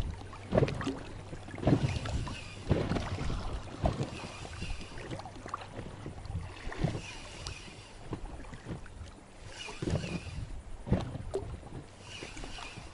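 Water sloshing and splashing in irregular strokes, over a steady low rumble of wind on the microphone.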